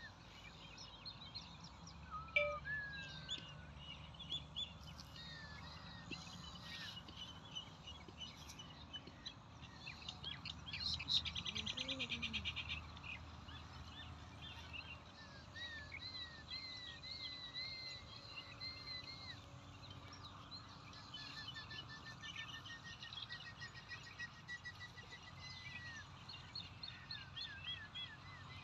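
Birds calling and chirping throughout, with short whistled and swooping notes over steady low outdoor background noise. About eleven seconds in comes a fast rattling trill lasting a second or so, the loudest sound here.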